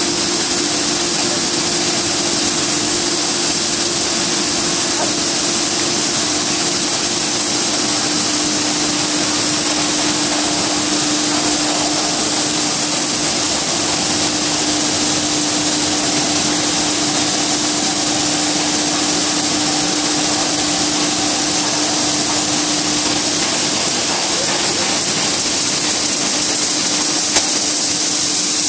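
PP/PE film pelletizing line with a 100 mm extruder screw and a vertical die-face cutter, running: steady industrial machine noise with a high hiss and a constant low hum.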